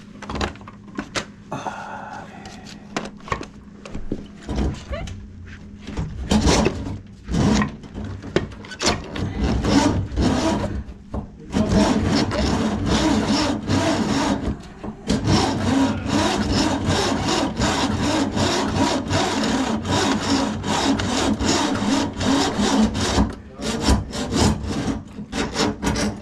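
Electric drum-type drain-cleaning machine running, its spinning steel cable scraping and rattling through the worker's gloved hand as it is fed into a kitchen drain line clogged with grease. The scraping grows louder and busier about six seconds in.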